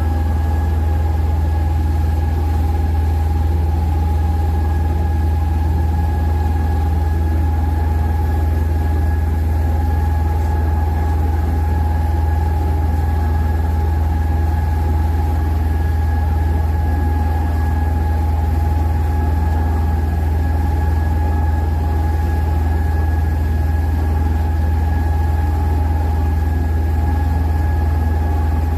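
An open tour boat's engine running steadily under way: a loud, constant low drone with a steady higher whine above it.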